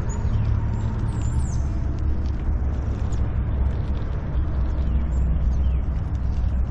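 Steady low wind rumble on the microphone of a bicycle being ridden, with a few faint, high chirps over it.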